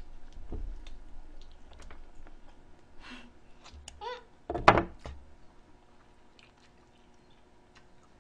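Light clicks and knocks of chopsticks and handling at a laden table, with a short vocal murmur about four seconds in and one louder thump just before five seconds in. The last few seconds are much fainter.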